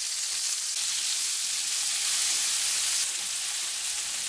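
Flour-dusted meatballs sizzling steadily in hot oil in a frying pan as they brown.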